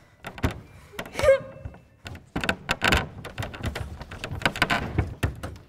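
Knife blades fixed to pointe shoes striking and scraping the lacquered wooden lid of a grand piano: irregular taps and thunks, sparse at first and then a dense run of strikes from about two seconds in.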